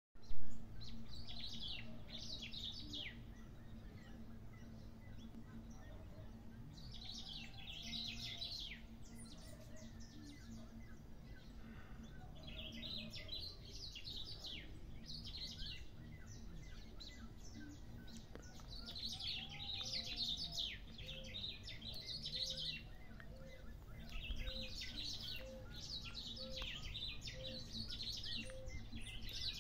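Black-throated grosbeaks (bico-de-pimenta) singing in repeated phrases of quick, high notes, each phrase a few seconds long with short pauses between. In the second half a soft low note repeats about once a second underneath. A brief knock at the very start.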